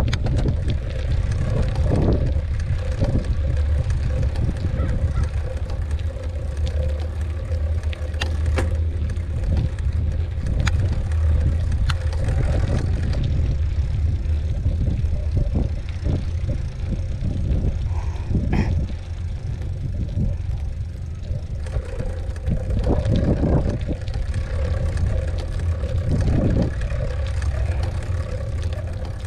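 Wind rumbling on the microphone over a mountain bike rolling along a dirt trail, with scattered clicks and rattles from the bike.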